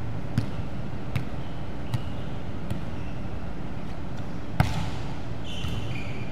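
A ball bounced on a wooden gym floor at a steady pace, about one bounce every three-quarters of a second, echoing in a large hall. A louder smack of a ball comes about four and a half seconds in.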